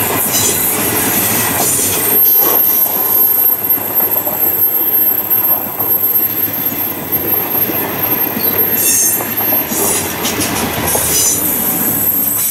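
Great Southern passenger train's stainless-steel carriages rolling past on a curve: wheels clattering over the rail, with a steady very high-pitched wheel squeal and louder squeals near the end.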